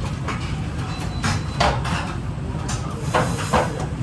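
Working kitchen noise: a steady low rumble with a few sharp knocks and clatters of pans and dishes, about four in all.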